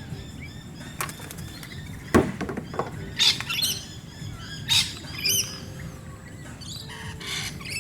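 Wild birds calling: a background of small chirps with several loud, harsh calls in the middle.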